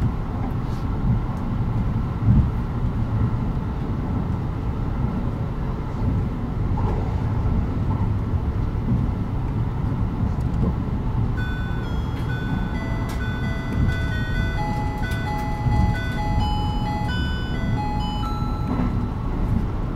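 Kintetsu 80000 series Hinotori express train running at speed, a steady low rumble of wheels and running gear. About halfway through, an electronic chime melody of clear stepped notes plays over the train's speakers, the cue that comes before the arrival announcement for the next station.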